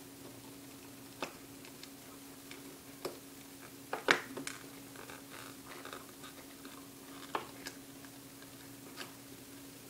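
Hands working at a camera's plastic packaging: scattered short clicks and crinkles, the loudest a cluster about four seconds in, over a steady low hum of recording static.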